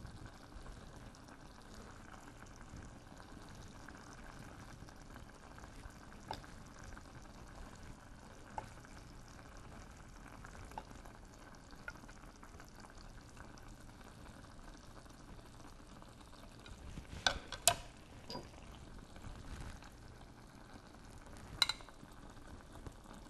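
Mushrooms braising in soy sauce simmer softly in a clay pot over low heat. A few sharp clicks of a spoon and plate come about two-thirds of the way through and again near the end.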